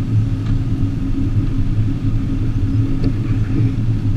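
Small outboard motor idling with a steady low hum.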